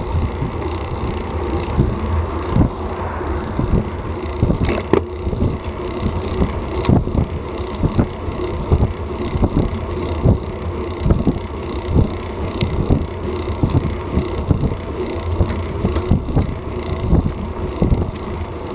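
Wind buffeting and road rumble picked up by a bike-mounted Garmin VIRB action camera while cycling on pavement, with frequent short low knocks throughout.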